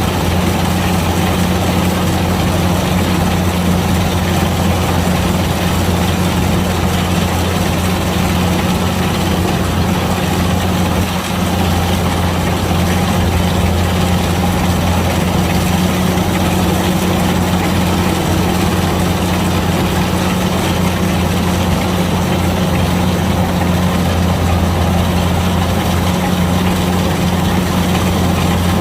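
Kubota DC-105X combine harvester's diesel engine running steadily, a constant low drone with machinery noise over it and a brief dip about eleven seconds in.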